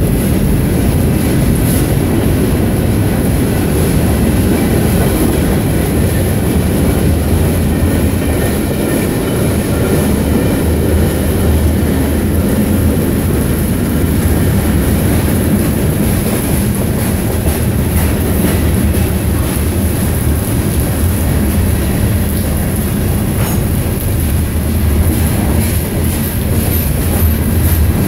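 Freight train cars rolling past close by: a steady, loud rumble of steel wheels on the rails, with clickety-clack over the rail joints and a faint high wheel squeal.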